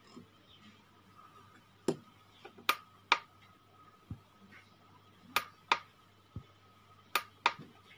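Sharp clicks, mostly in close pairs, as the volume knob of an amplifier speaker is turned back and forth, over a faint steady whine and low hum from the unit.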